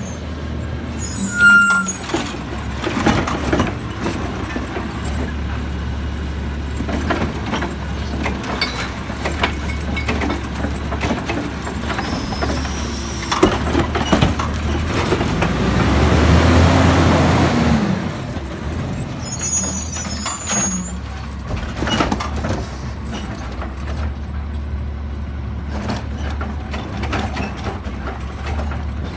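Automated side-loader garbage truck with a natural-gas engine working at the curb: its air brakes hiss as it stops, and again about 20 s in. Its engine revs up to drive the hydraulic arm, loudest about halfway through, as the arm grabs, lifts and dumps a cart with scattered knocks and bangs.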